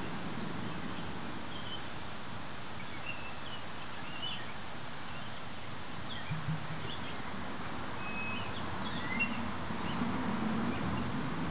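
Outdoor ambience: a steady hiss with scattered short, high chirps from small birds, and a few soft low bumps near the middle and toward the end.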